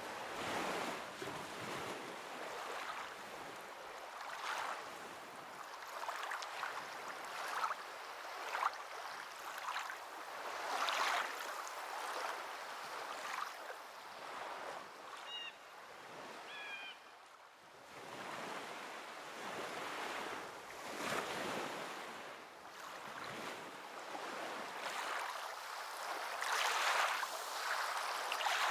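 Small waves washing in and out, the surf swelling and ebbing every few seconds. A few brief high chirps come about halfway through.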